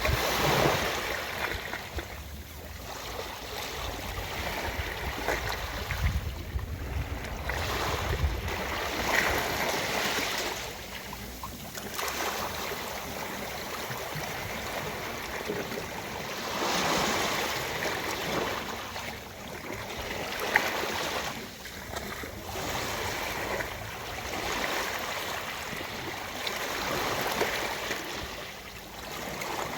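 Ocean surf washing onto a beach, a steady rush of water that swells and falls back every few seconds as waves break and recede.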